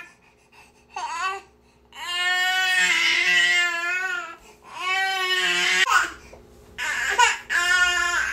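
Infant crying: a short cry, then two long wails of about two seconds each, then shorter, choppier cries near the end.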